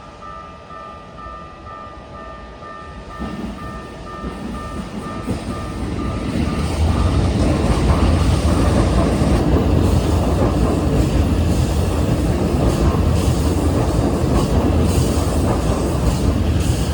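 Level crossing warning bell dinging steadily, then a Keikyu 1000-series train approaches and runs through the crossing. The train's rumble rises from a few seconds in and stays loud from about seven seconds on, covering the bell.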